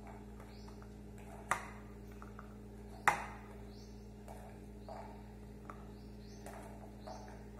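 Pomegranate seeds being pushed by hand off a plate into a bowl: two sharp clicks about a second and a half apart and a few faint ticks, over a steady low hum.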